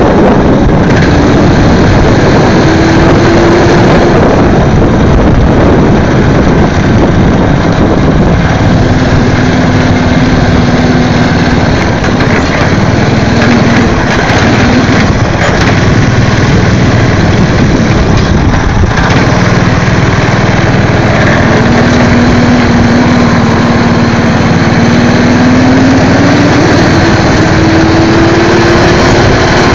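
Go-kart's Briggs & Stratton engine running close up while the kart is driven, its pitch climbing and dropping several times as it speeds up and slows, over a constant noisy rush.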